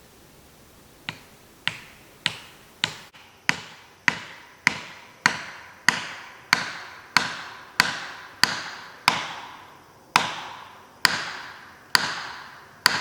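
A felling wedge being hammered into the back cut of an oak: about eighteen sharp, ringing blows, roughly one every 0.6 s, growing louder over the first few seconds.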